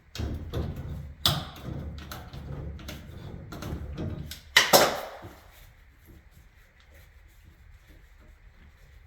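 Hand-tool and fitting clatter: pliers working at a toilet's water supply line connection, a run of knocks and scrapes with a sharp clank about a second in and a louder clunk about four and a half seconds in, then it goes quiet.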